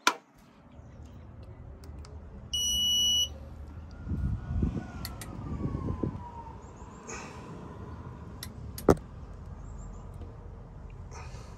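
Digital torque wrench sounding one steady high beep, under a second long, about two and a half seconds in, while the supercharger clutch is torqued to 59 foot-pounds. Scraping handling noise follows, then a single sharp click near the end.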